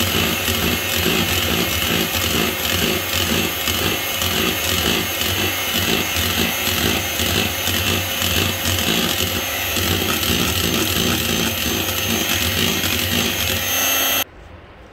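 Electric hand mixer running steadily at medium speed, its twin wire beaters churning cake batter as dry ingredients are beaten in; the motor cuts off abruptly near the end.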